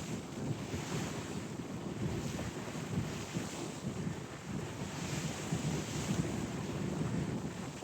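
Wind buffeting the microphone on a moving ferry, over the steady rush of sea water along the hull.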